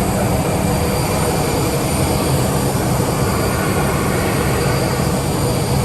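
Loud, steady cabin noise of a jet airliner with its engines running: a low rumble with a hiss and a faint whine above it.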